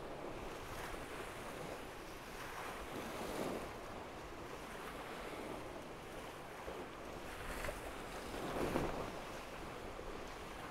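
Steady rush of wind and water along a Tornado catamaran under sail, with wind buffeting the microphone. It swells twice, loudest about nine seconds in.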